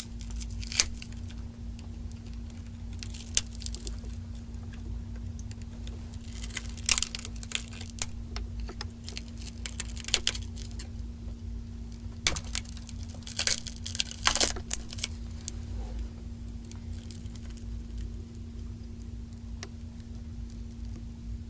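Pick prying the cracked front glass off a Samsung Galaxy S3, with scattered sharp clicks and crackling as the glass and its softened adhesive give way, thickest in two clusters around the middle. A steady low hum runs underneath.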